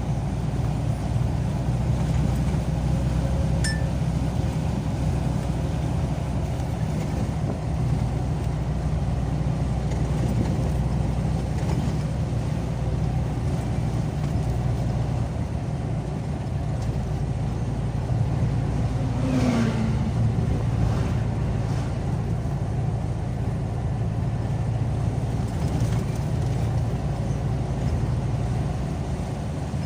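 Car driving along a road: steady engine hum and road noise. About two-thirds of the way through, a short whine falls sharply in pitch.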